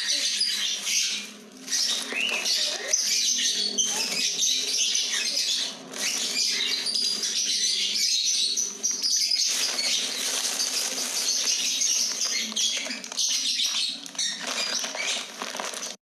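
Dense, continuous chatter of many small birds chirping at once, with rustling as a plastic sack and birds are handled.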